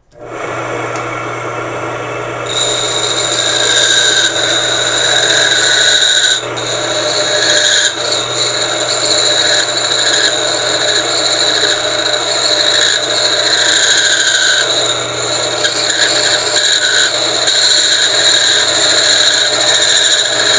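Electric motor switched on, belt-driving a shaft with a steady hum. A couple of seconds in, a hand-held tool pressed against the spinning part adds a steady high-pitched squeal and scraping as it slowly cuts away metal, part of it aluminium, on an improvised lathe.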